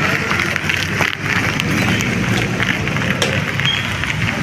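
Steady noise of a heavy rainstorm, rain pouring down without a break.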